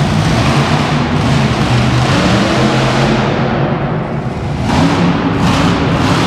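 Monster truck engines revving loudly, echoing under a big steel-roofed arena, the roar swelling again about three-quarters of the way through.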